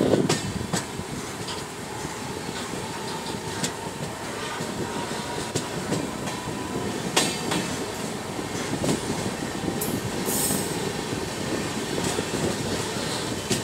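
Passenger train running along the track, heard from aboard: a steady rumble of wheels on rail, with sharp clacks every second or two as the wheels cross rail joints.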